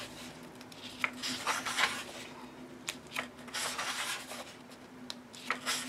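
Paper pages of a softcover coloring book being turned by hand: a string of soft paper swishes and rustles, several page turns a second or so apart.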